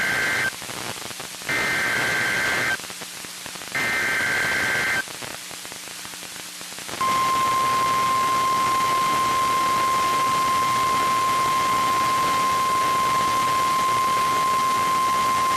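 Three bursts of the Emergency Alert System SAME header, a screeching two-pitch digital data tone, the first ending about half a second in; then, after a short gap, the NOAA Weather Radio 1050 Hz warning alarm tone held steady for about nine seconds, over a hiss of radio static. Together they announce the activation of a tornado warning.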